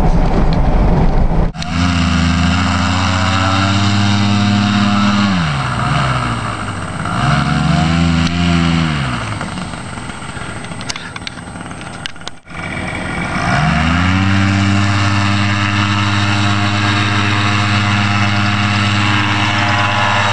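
Powered paraglider (paramotor) engine running, first throttled down and up and easing off, then after a cut throttled up and held at a steady high power for the wing inflation and launch. It is preceded by about a second and a half of road rumble inside a moving car.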